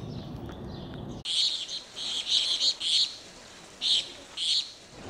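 Birds chirping in short bursts, starting abruptly about a second in after a low, steady background noise, with a run of quick chirps followed by two more separate ones near the end.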